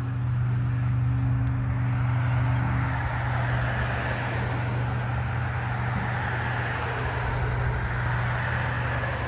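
A car passing on the road: its tyre and road noise builds over several seconds and goes by near the end. Under it runs a steady low drone from the freighter's engine.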